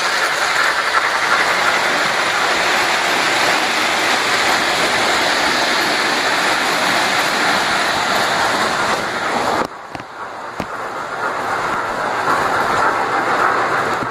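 O scale model passenger train running on its track: a steady rolling rush of wheels and motor. The rush drops suddenly a little under ten seconds in, then builds back up.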